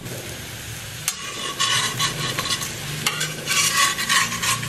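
Ghee sizzling under a layered lachha paratha on a hot iron tawa, the hiss swelling louder twice.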